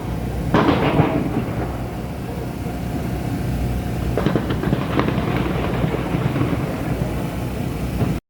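Fireworks bursting some way off: four or so sharp bangs, each trailing an echoing rumble, over a steady low background rumble. The sound cuts off suddenly near the end.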